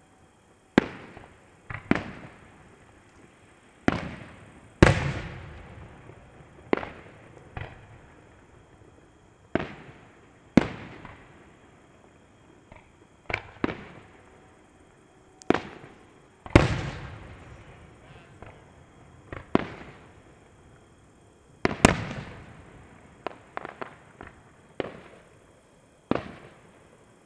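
Fireworks exploding: a string of sharp bangs at irregular intervals, some close together in quick clusters. The biggest are followed by a long fading tail.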